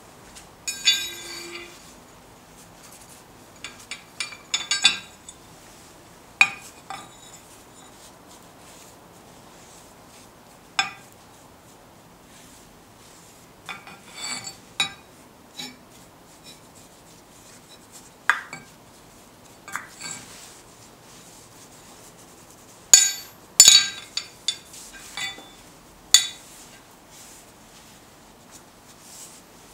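Irregular clinks and knocks, about ten in all with short ringing, as a glass jar and the forged steel holdfast are set down and moved on the steel face of an anvil. The loudest come as a quick cluster a little past three-quarters of the way through.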